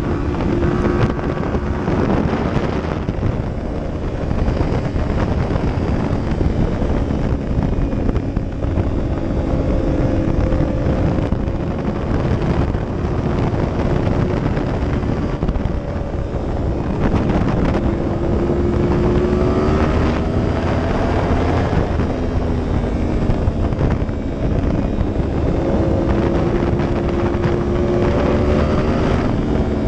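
2015 Yamaha R1's crossplane inline-four running at speed, its note rising as the throttle opens, dropping, then rising again near the end, under heavy wind noise on the microphone.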